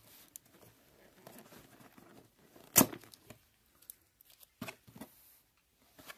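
Tape seal on a cardboard box being torn open: one short, sharp rip about three seconds in, amid quiet rustling of cardboard. Two softer knocks follow as the flap is opened.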